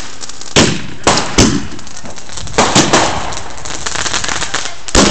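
Firecrackers and fireworks going off: about seven sharp, loud bangs at irregular intervals, each trailing off in an echo.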